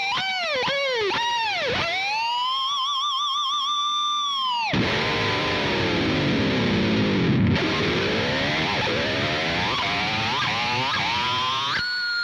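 Distorted electric guitar, an Ibanez S-series with Quantum humbuckers, with its pitch bent by the Edge Zero tremolo bar. A few quick dips come first, then a held note wavering in vibrato that stops suddenly about four and a half seconds in. A long dive down and a climb back up follow, and a new held note starts near the end.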